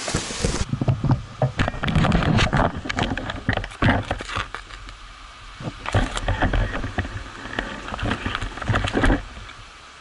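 Camera handling noise as it is taken down and set in grass: an irregular run of knocks, bumps and rustles on the microphone, stopping about nine seconds in. A steady rushing noise cuts off just after the start.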